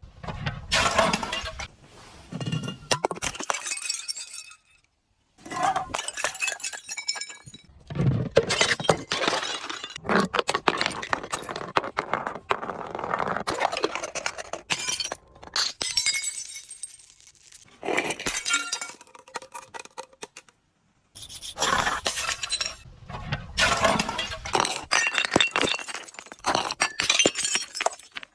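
Glass bottles breaking and being crushed: crunching and crackling with shards clinking, in several separate bouts broken by short pauses and two sudden silences.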